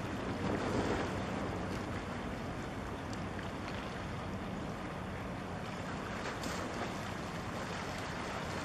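Steady low drone of a ship's engine under wind noise on the microphone and the rush of water, swelling briefly about a second in.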